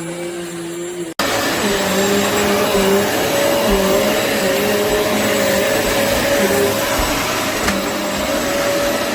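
Hoover MAXLife Elite bagless upright vacuum cleaner running: a steady motor hum and whine with airflow rush. It breaks off sharply about a second in and comes back louder.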